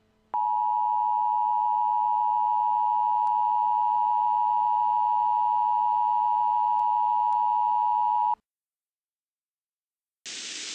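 Emergency Alert System attention tone: a steady high tone held for about eight seconds, then cut off sharply. After a short silence, radio static hiss starts near the end.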